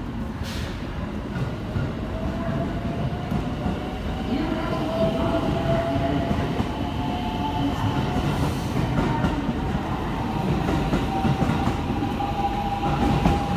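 Electric train moving through the station, a steady rumble of wheels on the rails with a motor whine that comes in about four seconds in and slowly rises in pitch as the train gathers speed.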